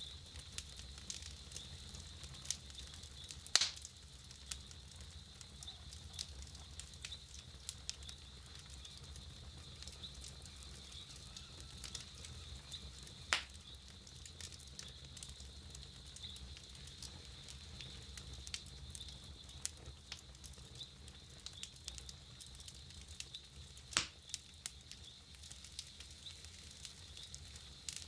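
Wood campfire burning with frequent small crackles and a few sharper, louder pops, about three and a half, thirteen and twenty-four seconds in, over a faint steady high hiss.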